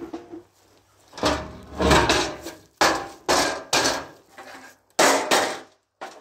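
Metal being struck: about seven hard bangs, irregularly spaced and bunched in clusters, each with a short ringing tail, like hammering on scrap metal.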